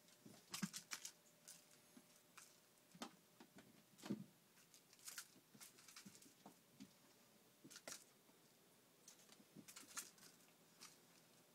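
Faint, irregular patter of cats' paws scampering and pouncing on a wooden floor, with scattered taps and a few soft thuds.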